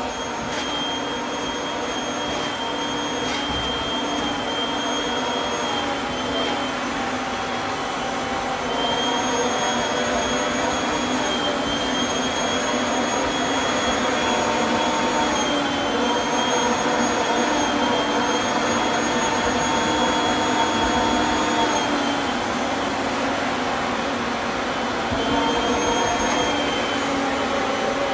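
Canister upholstery vacuum machine running continuously as its hose nozzle is worked over a fabric sofa: a steady rushing suction with a high motor whine that dips and recovers in pitch several times, growing slightly louder about a third of the way in.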